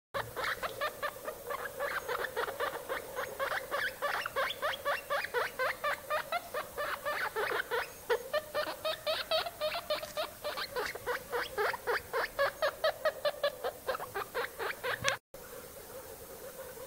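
Guinea pig pup giving a fast series of short, squeaky calls, about six a second, that stop abruptly about a second before the end.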